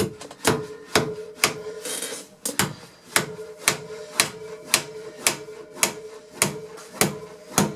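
Hammer tapping finish nails into wooden baseboard trim to draw it tight, a steady series of about fifteen strikes, roughly two a second, each with a short metallic ring.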